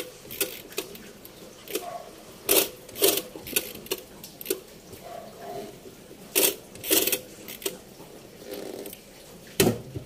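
Irregular sharp clicks and knocks, about a dozen spread over several seconds, from the controls of an old Sharp top-load washing machine being set to drain.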